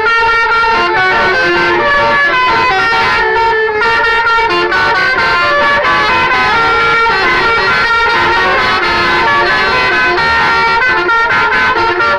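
Bus telolet horns, multi-tone musical air horns, playing melodic runs. Several steady notes sound together and switch to new pitches every fraction of a second, loud and unbroken.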